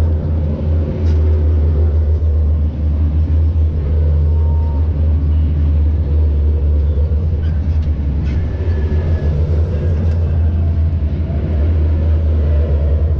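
Rosomak 8x8 wheeled armoured vehicles' diesel engines driving past at close range: a loud, steady low drone with tyre rumble.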